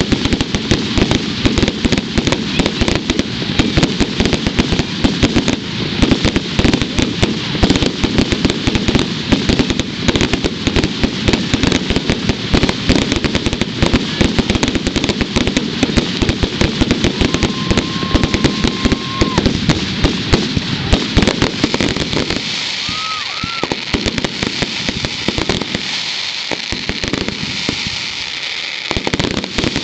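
Fireworks display: a dense, continuous crackle of many small pops and bangs, thinning to sparser cracks about two-thirds of the way through.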